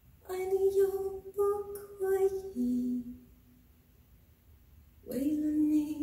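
A woman's singing voice played back through ELAC Adante AS-61 bookshelf speakers and picked up by a phone in the room. She sings a short phrase of held notes, the last one dropping lower, then pauses for about two seconds and comes back on a note that slides up and holds.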